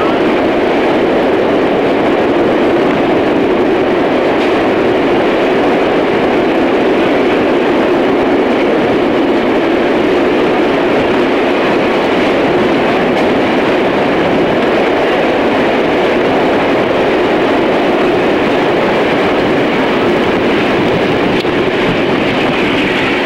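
Steam-hauled passenger train behind Reading & Northern locomotive 425 running through a tunnel, a loud, steady rumble that does not let up.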